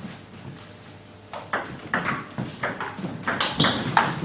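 Table tennis ball clicking off the bats and the table in a rally: quiet at first, the first hit about a second in, then a run of sharp ticks coming closer together.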